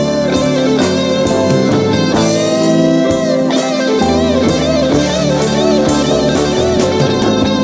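Rock music: a guitar-led instrumental passage with bending notes over a steady beat.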